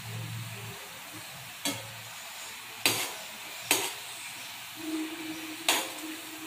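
Sugar syrup boiling hard in a metal pan, a steady bubbling hiss, as a metal ladle stirs the rasgullas round and knocks against the pan four times.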